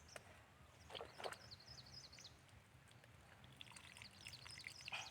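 Near silence: quiet outdoor marsh ambience with faint high-pitched chirps, and two soft knocks about a second in.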